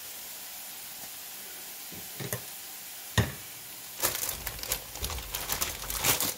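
Steady sizzle from cauliflower rice frying in a hot skillet. About three seconds in there is a sharp click. From about four seconds in comes a louder run of crackling and rustling from the plastic bag of frozen vegetables being handled.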